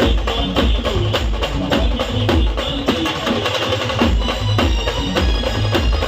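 Instrumental band music with no singing: a fast, steady drum rhythm with heavy bass drum beats.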